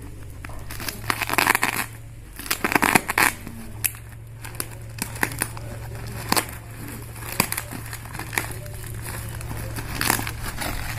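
Knife cutting into a parcel wrapped in brown packing tape, then hands tearing and crinkling the tape and plastic wrapping open, with two louder rips in the first few seconds and scattered crackles after.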